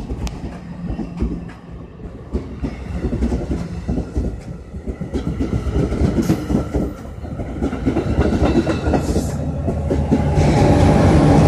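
NJ Transit multilevel commuter coaches rolling past at close range, their wheels clicking over the rail joints. Near the end the locomotive passes, and a louder, steady drone comes in on top of the wheel noise.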